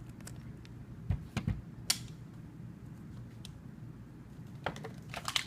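Scattered clicks and light knocks of hand tools and small metal parts during reassembly of a string trimmer's carburetor, with two duller thumps about a second and a half in and a quick run of clicks near the end.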